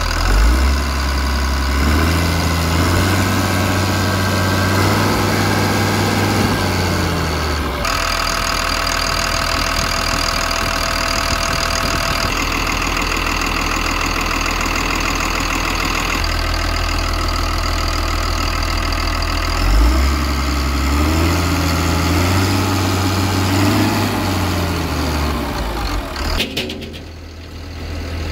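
Caterpillar 3116 turbocharged six-cylinder diesel of a 1995 Caterpillar AP-1050 asphalt paver running at idle, revved up and held for a few seconds, then let back down to idle, twice.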